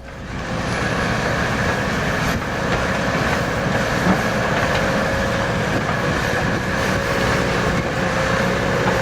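Komatsu HB215 hybrid excavator running and working: a steady machine noise that builds over the first second and then holds, with a faint steady whine running through it.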